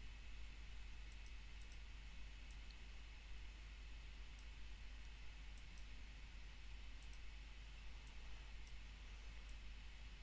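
Faint, scattered computer mouse clicks, about a dozen at irregular intervals, over a steady low hum and hiss.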